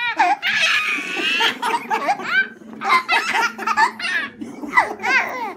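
A baby laughing hard, in repeated high-pitched bursts of giggles and squeals.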